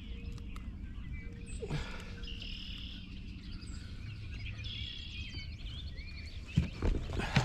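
Songbirds chirping in short phrases over a steady low outdoor rumble, with a few sharp knocks near the end.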